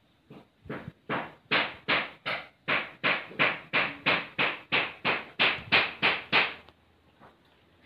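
A steady series of sharp knocks or taps, about three a second, starting softly and growing louder, then stopping suddenly after some six seconds.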